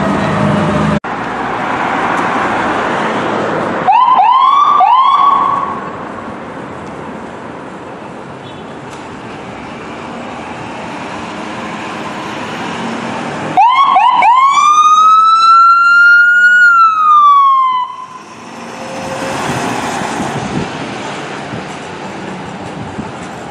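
Emergency vehicles' electronic sirens on a call: three quick rising whoops about four seconds in, then, about fourteen seconds in, a few short rising chirps running into one wail from the ambulance, held and then falling off about four seconds later. Engine and traffic noise runs in between and after.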